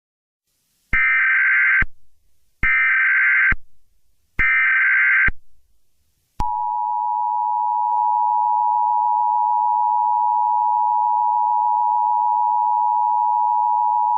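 Emergency Alert System tones: three short bursts of SAME data header tones, about a second each with short gaps, followed about six seconds in by the steady two-tone EAS attention signal.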